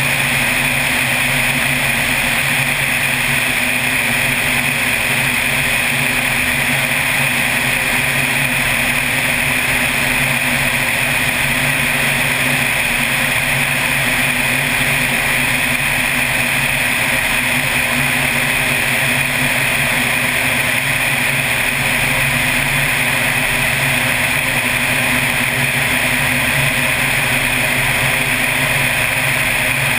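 Small floatplane's engine and propeller droning steadily in level cruising flight, with a rush of air over the airframe.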